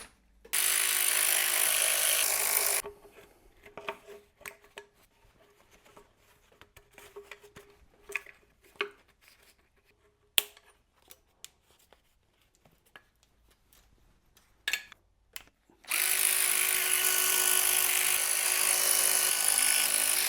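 A cordless power tool runs twice, for about two seconds at the start and for about four seconds near the end, spinning out Torx T30 bolts that hold the engine's upper timing covers. Between the runs, light clicks and taps of bolts and metal parts being handled.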